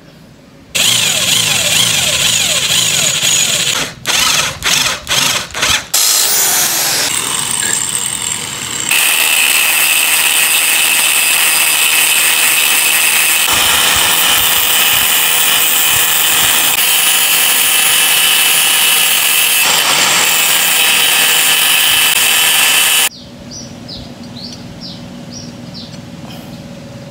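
Angle grinder with a thin cut-off disc cutting through a threaded steel rod. The loud, steady cutting noise breaks off in several short stutters around four to six seconds in, then runs steadily until it stops abruptly near the end, leaving a few light metal clicks.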